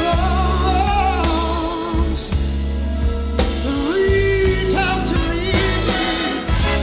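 Soul music recording: a lead singer's voice, wavering in pitch and holding one long note near the middle, over a band with a heavy, steady bass.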